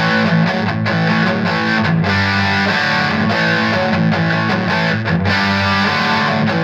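Electric guitar played through an overdriven, Marshall-style amp setting: a 2016 Fender Modern Player Telecaster on its bridge humbucker into a Vox VT20X modelling amp, playing distorted chords continuously.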